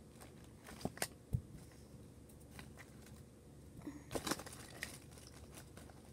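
Small toys being handled and rummaged through: scattered soft clicks and rustles, with a cluster about a second in and another about four seconds in.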